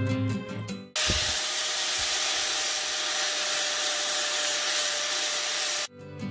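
Angle grinder with a sanding disc running against a wooden board: a loud, even grinding hiss over a steady high motor whine. It cuts in sharply about a second in and stops just before the end.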